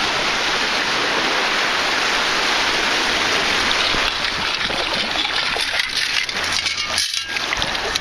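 Shallow bay water sloshing and rushing as a long-handled perforated sand scoop digs into the bottom and is lifted out. A steady rush of water for about the first half, then uneven splashing with small crackles of gravel and shell shifting in the scoop as it comes up.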